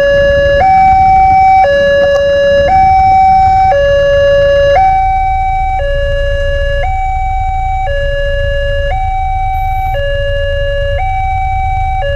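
Railway level-crossing warning siren sounding a steady two-tone alternation, a lower and a higher note each held about a second, warning that a train is approaching while the barrier is closed. A constant low rumble lies beneath it.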